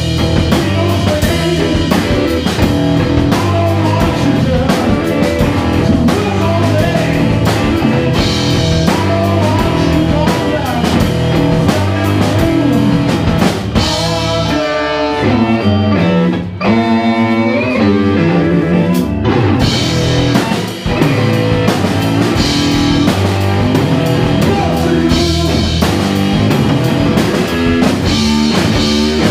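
Live electric blues-rock band playing loud: electric guitar, bass and drum kit. About halfway the drums and cymbals drop out for a few seconds, leaving a melodic line running up and down, then the full band comes back in.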